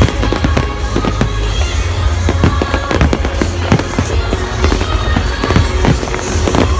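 Fireworks going off in rapid succession, many sharp bangs and crackles over a deep rumble, with the show's music soundtrack playing underneath.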